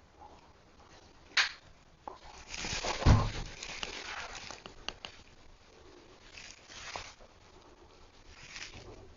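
A sharp click, then about three seconds in a low thump with a burst of rustling, and a couple of thin clicks: handling and movement noises in a small room.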